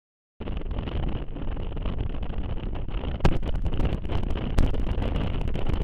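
Wind buffeting the microphone along with road noise from a moving car, starting suddenly about half a second in, with two sharp knocks in the second half.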